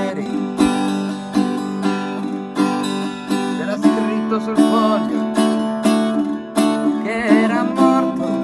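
A small travel guitar strummed in a steady rhythm, with a strong chord about every two-thirds of a second and lighter strokes between.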